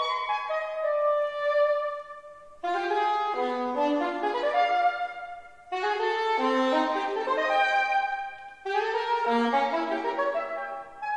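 Soprano saxophone playing a slow melody in three phrases, each starting strongly and fading away before the next.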